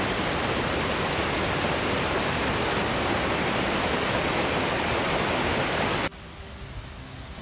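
Small mountain waterfall cascading over rocks, a steady rushing of water that cuts off suddenly about six seconds in, leaving a much quieter outdoor background.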